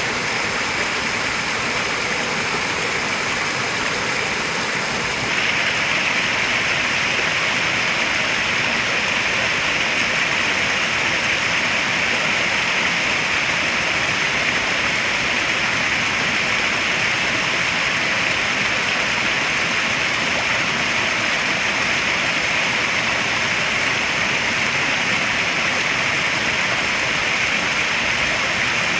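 Small waterfall pouring into a koi pond: a steady splashing rush of water that gets a little louder and brighter about five seconds in.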